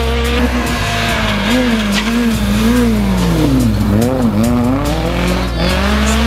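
Rally car engine revving hard, its pitch weaving up and down, then dipping sharply several times about three and a half seconds in as it brakes and downshifts into a tight bend, and rising again near the end as it accelerates away, with tyres squealing.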